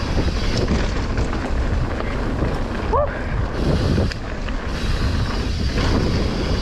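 Wind rushing over the microphone and the downhill mountain bike's tyres running fast over a dirt trail, with small clicks and knocks from the bike. A short rising squeak about three seconds in.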